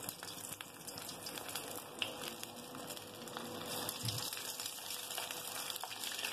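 Breadcrumb-coated baby corn deep-frying in hot oil: a steady sizzle with many small crackles, growing a little louder past halfway as more pieces go into the oil.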